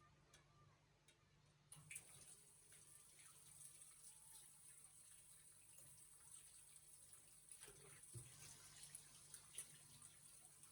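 Faint water running from a tap into a sink, switched on about two seconds in, with a few light knocks.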